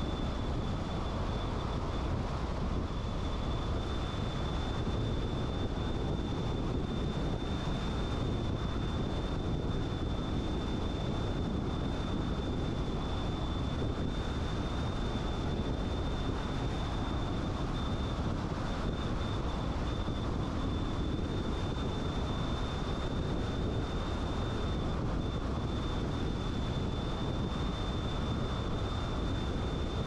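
Steady road noise of a car driving at speed: a low, even rumble of tyres and wind, with a thin, constant high whine running through it.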